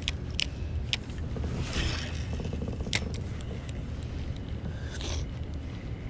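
Spinning rod and reel being handled and cranked: a few sharp clicks and a short rattly ticking from the reel, over a low steady rumble.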